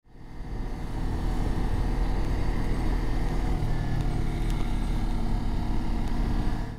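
Motorcycle riding at low speed, its engine running steadily under wind noise, fading in over the first second.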